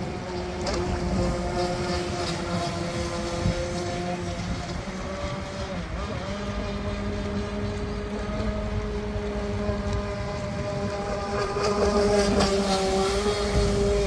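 Electric 6S RC speedboat running at speed over choppy water: a steady motor whine that drifts up and down in pitch with the throttle, with wind buffeting the microphone. It grows louder near the end as the boat passes close.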